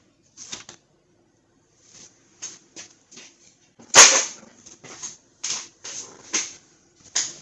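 Handling and movement noises: a string of short scuffs and paper rustles, with one loud, sharp knock about four seconds in.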